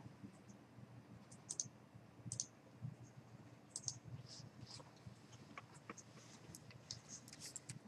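Faint, irregular computer clicking, mostly mouse clicks, over a low steady room hum.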